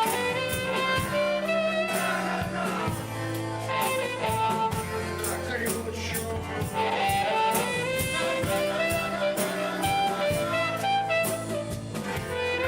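Live band playing an instrumental passage: a lead melody line over bass and drums.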